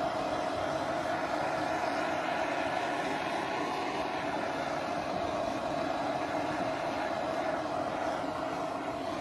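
Handheld kitchen blowtorch burning with a steady, unbroken rushing hiss as its flame browns icing sugar sprinkled on a marzipan-topped cake.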